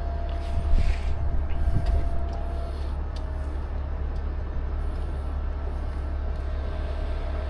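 Heavy rotator tow truck's diesel engine running steadily as the winch pulls on the line to right an overturned mini excavator, with a thin steady whine and a few knocks in the first two seconds.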